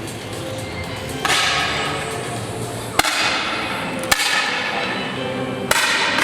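Air rifle shots: four sharp cracks spaced a second or two apart, over a steady background.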